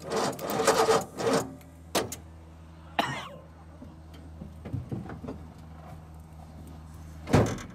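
Truck starter motor cranking hard for about a second and a half on current fed through thin makeshift boost wires, which overheat and smoke, then it stops. A few clicks follow, then a louder thump near the end, over a steady low hum.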